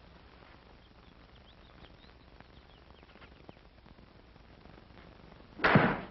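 Faint bird chirps over a quiet background, then near the end one sudden loud whack, about a third of a second long, as a driven golf ball smacks through a canvas practice target.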